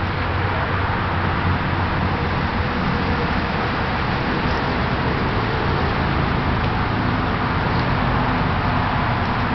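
Steady outdoor rumble and hiss with a low hum underneath, even throughout with no distinct events.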